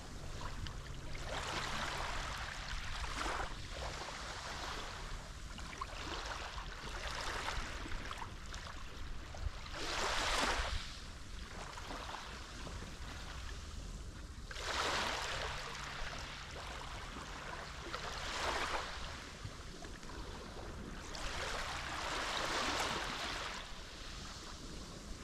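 Mediterranean waves breaking and washing on the shore, each surge of surf rising and falling every three to four seconds, the biggest about ten and fifteen seconds in.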